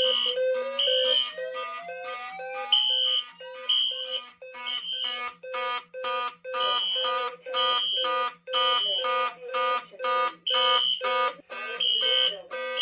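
Several fire alarm horns sounding together in alarm, pulsing at about two blasts a second in march time. A higher beeping tone comes in about once a second, and a rising sweep runs through the first few seconds.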